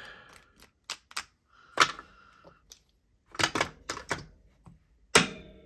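Small hand tools being put away into a case: an irregular scatter of sharp clicks and knocks, with a quick cluster past the middle and a loudest knock near the end that leaves a brief ring.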